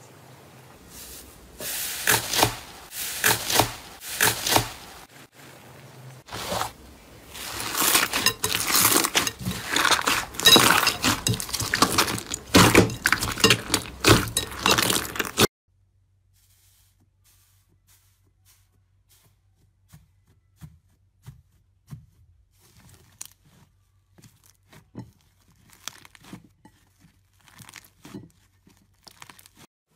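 Slime being pressed and worked, a dense run of crackles and pops that stops abruptly about halfway through; after that only faint, scattered clicks.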